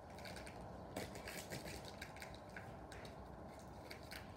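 Packaging being opened and cut into by hand: faint, scattered clicks and rustles.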